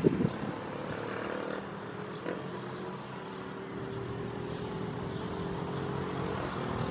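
Distant Boeing 737-800's CFM56 jet engines droning steadily on final approach.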